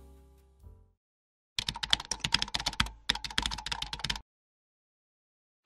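Keyboard-typing sound effect: two quick runs of key clicks with a short break between them. A piano-music tail fades out just before.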